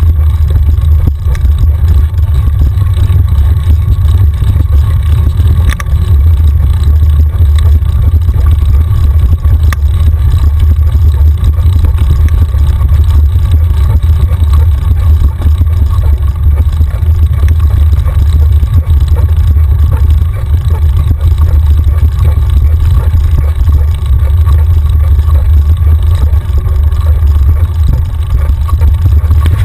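Loud, steady low rumble of wind buffeting and ride vibration on a bike-mounted action camera as a mountain bike rolls along a dirt track.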